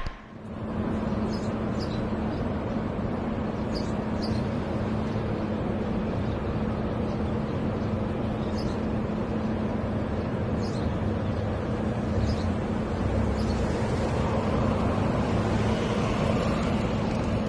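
Steady running-machine noise: an even rush with a constant low hum, and a few faint ticks now and then.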